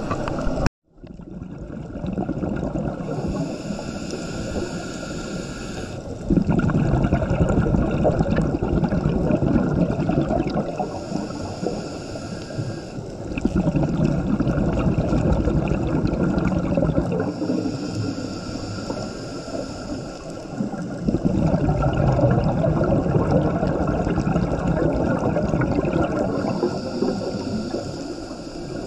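Rushing water noise that swells and eases in surges about every seven or eight seconds, cutting out briefly under a second in.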